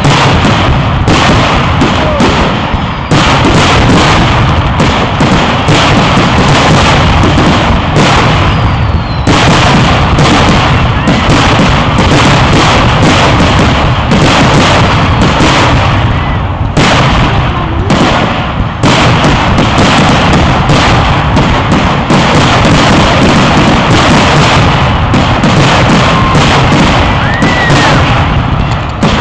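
Fireworks going off in a dense, continuous barrage of booms and crackling bangs, very loud throughout, with no gaps between bursts.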